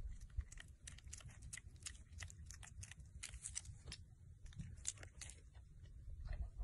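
Piglet in grass making faint, irregular crunchy clicks and rustles.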